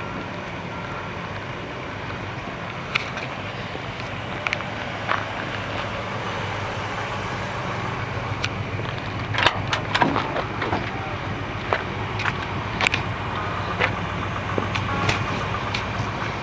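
Cadillac 500 cubic-inch V8 engine idling steadily, with scattered sharp clicks over it.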